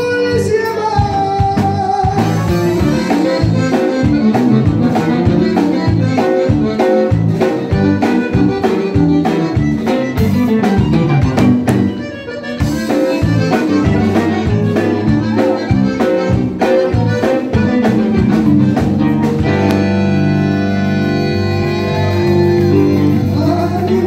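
Live norteño band music: a button accordion leads over electric bass, guitar and a steady drum beat. Near the end the band moves into long held notes.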